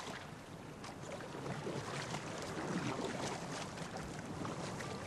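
Kayak paddles dipping and splashing, with water washing against an inflatable kayak's hull as it is paddled out through small waves.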